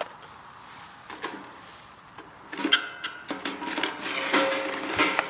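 A foil-lined tray being dragged out over the wire rack of a Winnerwell tent stove's steel oven box: metal scraping and rattling with crinkling foil, starting about halfway through after a couple of light clicks.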